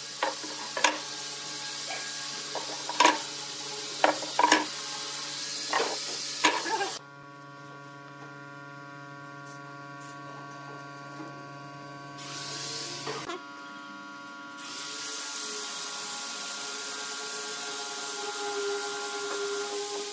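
Quick-release bar clamps clicking and knocking as they are handled and tightened on glued pine blocks: about a dozen sharp clicks over the first seven seconds. After that it is quieter, with a steady hum and a hiss that comes and goes.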